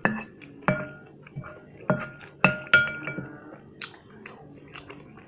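A spoon clinking against a cut-glass bowl. Each knock leaves a short ringing tone from the glass. There are about five clear clinks in the first three seconds, then lighter taps.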